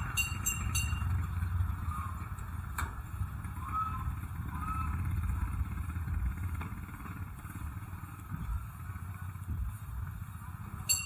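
Motorcycle engine running steadily under street noise, with a few faint short chirps and one sharp click about three seconds in.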